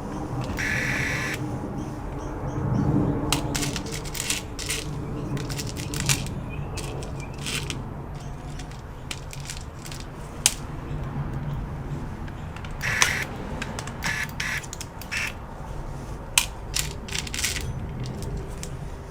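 Irregular small clicks and taps of laptop parts and tools being handled during reassembly, with a brief squeak near the start.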